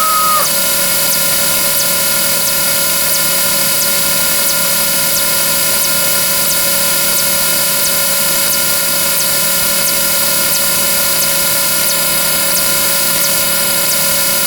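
A dense, steady drone of layered sound effects: many held tones stacked together, with faint regular ticks running under them.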